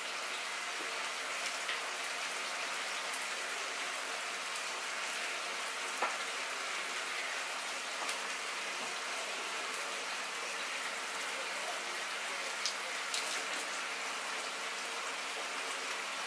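A steady, even hiss, with a few soft ticks and taps as lettuce leaves are handled and laid onto burger buns.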